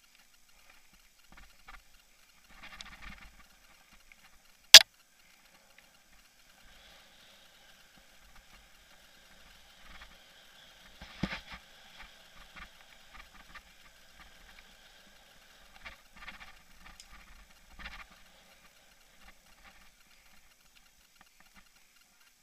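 Mountain bike and its mounted action camera rattling over rough singletrack, with scattered short clatters and scrapes and one loud, sharp click about five seconds in.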